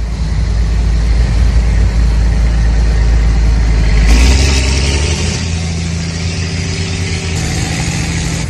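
Tractor engine running with a deep, steady rumble. About four seconds in, its pitch rises and a hiss joins in.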